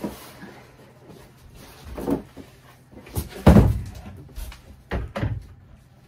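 Cardboard box rustling and scraping as a 27-quart portable car fridge is hauled out of it, with a loud heavy thump about three and a half seconds in as the fridge is set down, and a couple of sharper knocks near the end.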